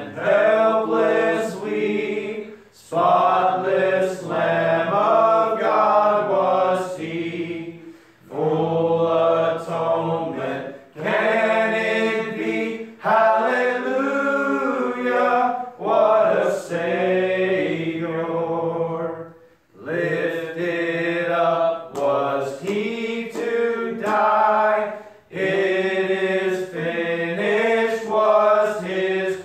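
A hymn sung without instruments, a man's voice leading into the microphone, in long held phrases with short breaks for breath.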